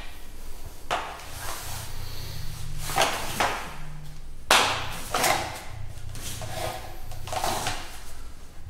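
A series of short sliding swishes and rustles as wooden practice swords are drawn from and slid back into a scabbard and the two kneeling partners move on the mat, the loudest about halfway through, over a low steady hum.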